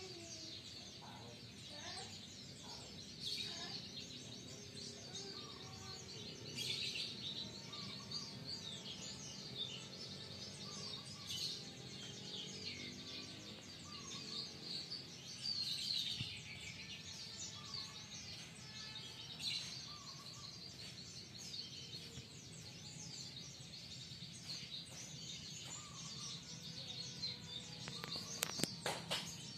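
Birds chirping and calling again and again over a steady low background hum, with a few sharp clicks near the end.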